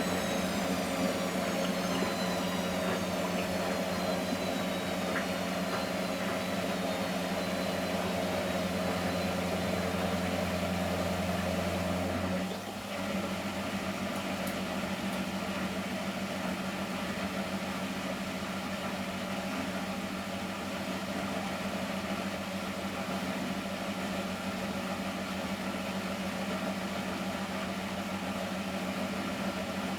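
Miele Professional WS 5426 commercial washing machine running mid-cycle: a steady mechanical hum, with a faint high whine falling in pitch over the first ten seconds. About twelve seconds in, a deep hum cuts out and the machine carries on running at a slightly lower level.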